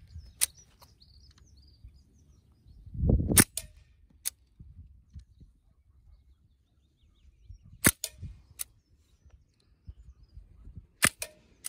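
Sig Sauer Virtus .22 pre-charged pneumatic air rifle firing: sharp cracks, several shots a few seconds apart, some in quick pairs. A low rumble swells just before the loudest shot, about three seconds in.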